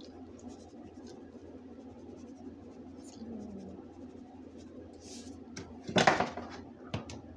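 A pan of ramen with chicken, corn, beans and onions simmering on a stove: a steady low hum with faint scattered ticks. About six seconds in there is a loud, short scrape and clatter, and a small click about a second later.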